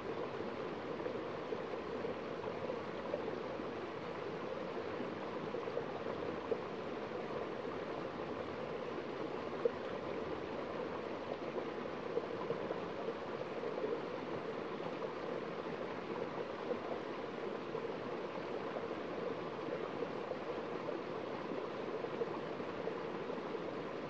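Small stream pouring in a short cascade over rocks into a shallow pool: a steady rush of splashing water.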